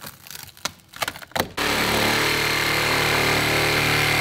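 Rotten plywood crackling and snapping as pieces are pulled off a boat transom by hand, then about one and a half seconds in a reciprocating saw starts and runs steadily with a high whine, cutting into the rotten transom.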